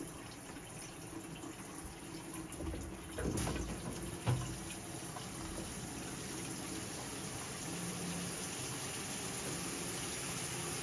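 Water running steadily from an opened hot-water valve while the tankless heater is about to fire, with a couple of knocks about three to four seconds in.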